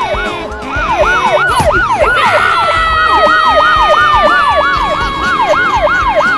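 Police siren in fast yelp sweeps, rising and falling about three to four times a second. A long held tone joins about two seconds in and slides slowly downward.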